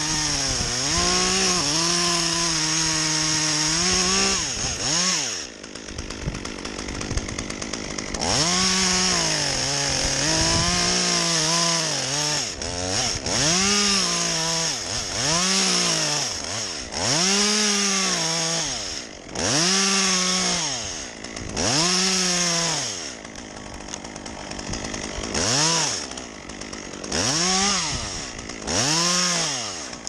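Petrol chainsaw worked in repeated short bursts. It is held at high revs for the first few seconds, then drops back. After that the engine pitch climbs and falls back about every second and a half, with a short lull about three-quarters of the way through.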